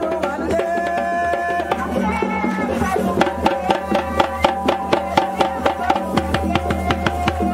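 Traditional West African dance music: a drum beaten in quick, even strokes under long held melodic notes.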